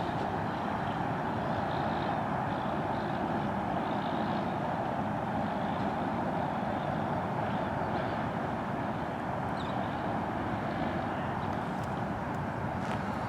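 Steady outdoor background roar, an even rush of noise that holds level throughout, as from wind and distant traffic.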